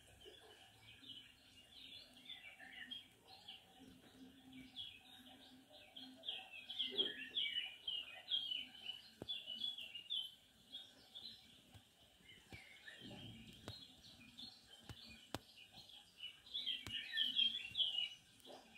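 Small birds chirping in a rapid, continuous twitter, with a few faint knocks in the middle.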